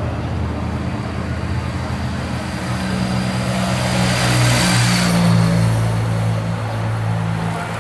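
A motorcycle engine running steadily at low revs while a pack of racing bicycles goes by, the sound swelling to its loudest about four to five seconds in.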